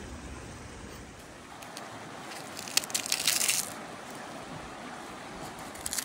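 Kitchen knife slicing cherry tomatoes on a wooden cutting board: a quick run of crisp cuts and taps a little before halfway through, over a steady rushing background noise.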